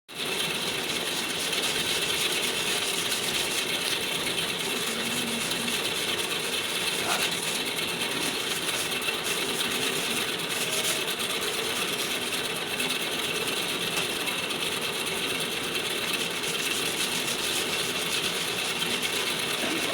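A small motor-driven power tool running steadily, with a dense, even whirring rattle that does not let up.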